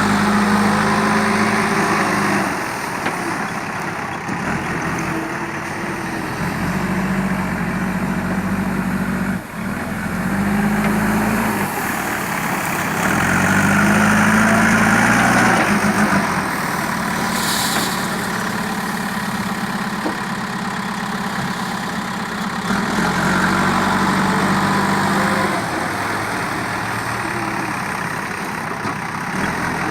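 JCB 3DX backhoe loader's four-cylinder diesel engine working, its revs rising and holding for a few seconds at a time, about five times, then dropping back between.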